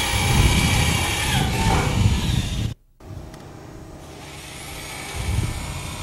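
Electric rotary hammer drill set to drill mode, boring a regular bit into a steel building girder, its motor running steadily under load. The sound cuts out abruptly a little under three seconds in, then the drilling comes back much quieter and slowly grows louder.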